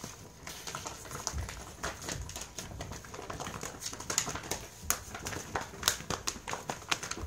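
Irregular quick taps, thumps and scuffles of a dog scrambling after a flirt pole lure across the floor, with a person stepping about as they swing it.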